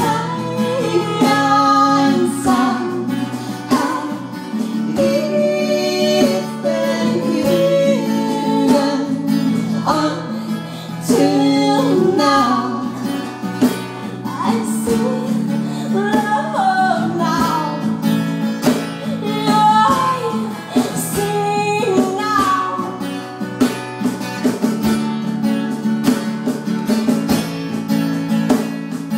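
Live acoustic song: an acoustic guitar strummed and picked, with women singing.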